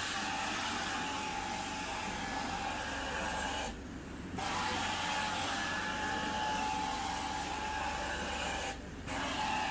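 Carpet-cleaning extraction wand spraying and sucking up rinse water from the carpet: a steady suction hiss with a whistling tone over a low machine hum. The hiss breaks off briefly twice, about four seconds in and near the end, between wand strokes.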